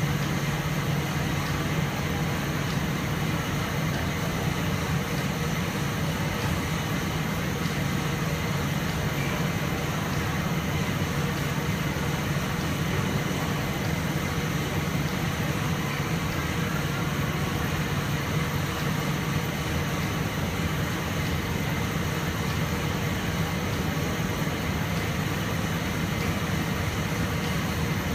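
Rotogravure printing press running: a steady machine drone with a low hum.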